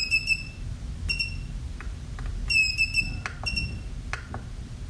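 Buzzer of a KSGER T12 soldering station giving a series of short high beeps as its rotary control knob is pressed and turned, some in quick runs of two or three, with faint clicks from the knob in between.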